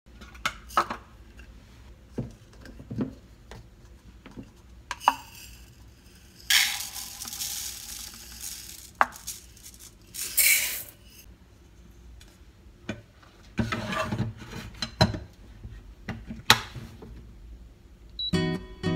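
Dry rice grains poured from a plastic cup into a rice cooker's inner pot, making a hissing patter in two pours, amid clicks and knocks of the cup and pot being handled. Music with guitar starts near the end.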